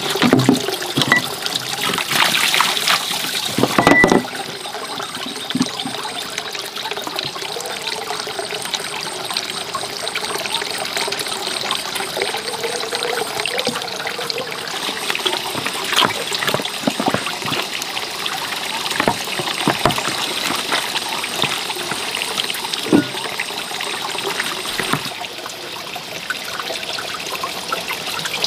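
Water trickling steadily, with scattered clicks and knocks that are loudest in the first few seconds.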